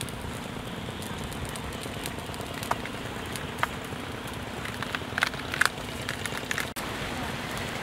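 Steady hiss of outdoor background noise with a few scattered sharp clicks, bunched together a little past the middle.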